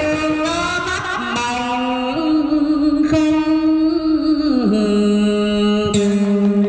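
A man singing a vọng cổ melody into a microphone to his own electric guitar accompaniment. The melody slides down into a long held low note about two-thirds in.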